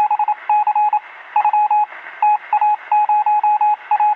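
Morse code: a single beeping tone keyed on and off in short dots and longer dashes, over a faint hiss.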